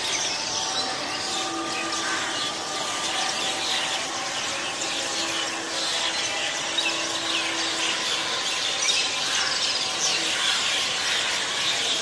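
A large flock of birds calling continuously as it circles overhead: a dense chatter of many short, overlapping high calls.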